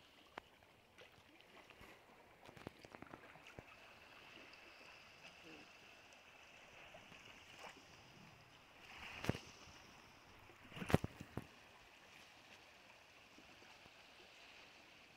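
Faint water lapping, with scattered small clicks and two louder sharp knocks in the second half.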